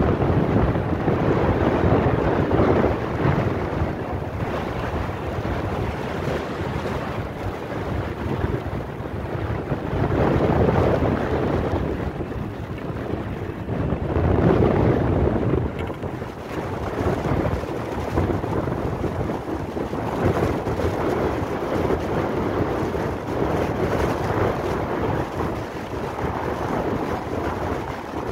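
Strong gusting wind of a mountain snowstorm buffeting the microphone, rising and easing in surges every few seconds.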